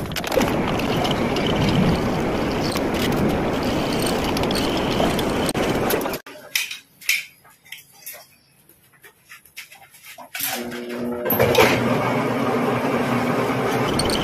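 Metal lathe running, turning the end of a motorcycle crankshaft against the cutting tool: a steady machine noise. About six seconds in, the sound falls almost to nothing for about four seconds, with a few faint clicks, then the steady running noise returns with a low hum.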